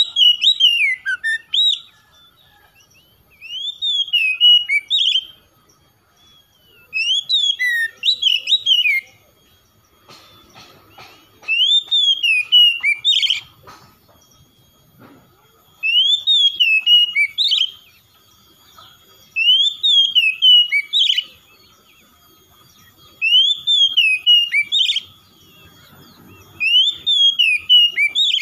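Oriental magpie-robin singing: a whistled phrase of quickly rising and falling notes, about two seconds long, repeated every three to four seconds.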